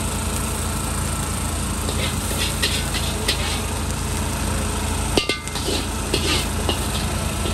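Metal wok ladle scraping and clinking against the wok as fried flat rice noodles are scooped out onto a plate, in two spells of short strikes, over a steady low rumble.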